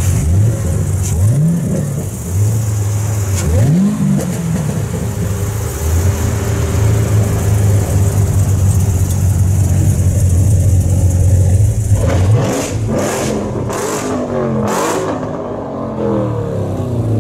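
Chevrolet Camaro ZL1's supercharged V8 blipped twice, each rev rising and falling quickly, then settling into a steady, deep idle. About twelve seconds in, a run of hard, quick revs follows, the pitch climbing and dropping several times.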